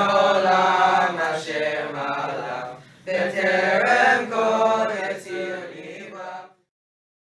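A group of boys chanting Hebrew prayers aloud together, with voices overlapping. There is a short break about three seconds in, and the chanting cuts off suddenly near the end.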